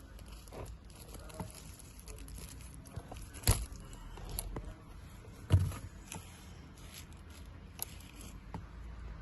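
Handling noise of hand tools and plastic trim parts: scattered small clicks and taps, with two sharper knocks about a third and halfway through.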